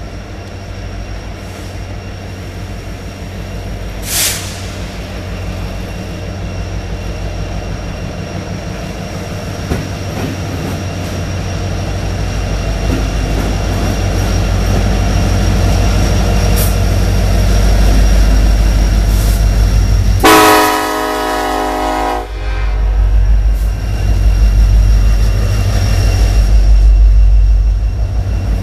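Diesel freight train approaching, its low rumble growing steadily louder, then a locomotive's multi-chime air horn sounding one blast of about two seconds, about twenty seconds in. The heavy rumble of the passing train follows.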